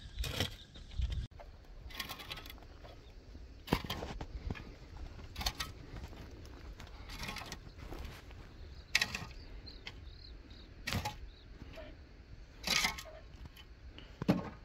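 Steel shovel digging and scraping into stony, gravelly soil, a crunching stroke about every one and a half to two seconds.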